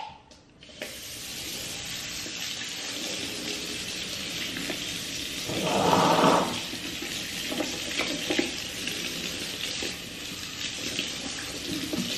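Kitchen sink tap running steadily, starting about a second in. About six seconds in comes a louder, lower sound lasting about a second, and a few small knocks follow later.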